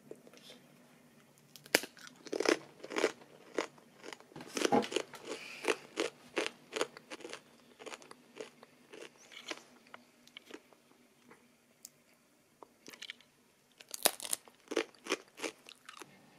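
Someone biting and chewing crunchy food close to the microphone: a run of crisp crunches, a pause with a few small ones, then a second run near the end.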